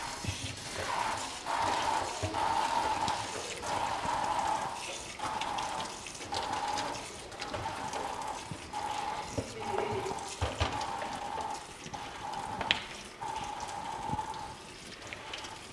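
Tap water running into a kitchen sink as a cutting board is washed under it, the sound of the stream breaking off and returning again and again as the board moves through it, with a few light knocks of the board against the sink.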